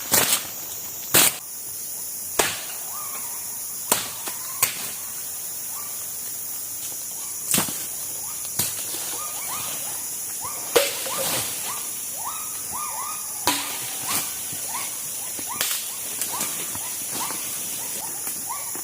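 Rainforest ambience: a steady high insect drone, broken every second or few by sharp single knocks like chops or cracks. From about eight seconds in come many short rising chirps.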